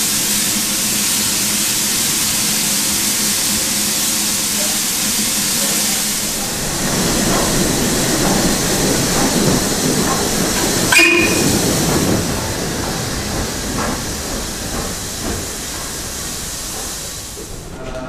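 Steam locomotive hissing steadily as steam escapes. After about six seconds a louder, rougher rumble of locomotive movement takes over, with a brief tone near the middle, then it fades.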